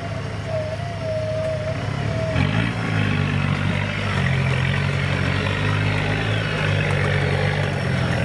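Off-road vehicle engine running low, then revving up about two seconds in and held at higher revs, as a vehicle bogged in mud is driven to get out.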